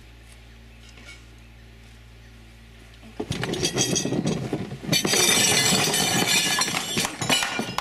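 Quiet at first, then about three seconds in a sudden loud clatter of plates, glasses and wooden table and chairs being knocked about as an elephant pushes into the dining table, growing louder and denser about two seconds later.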